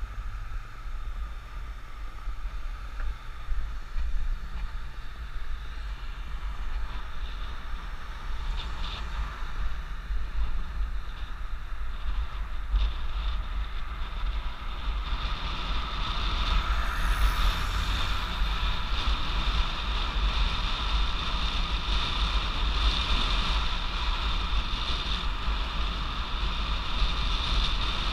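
Wind buffeting the microphone of a camera riding on a moving Stromer ST2-S e-bike: a steady low rumble, with a fainter steady higher hum that grows louder about halfway through.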